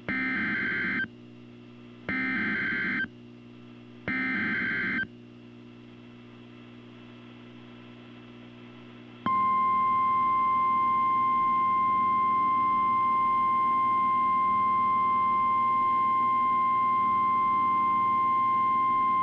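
NOAA Weather Radio Emergency Alert System signal: three SAME header data bursts of about a second each, a second apart, then after a short pause the steady 1050 Hz warning alarm tone, held for about ten seconds. Heard off a radio with a low hum underneath, it marks the start of a severe thunderstorm warning.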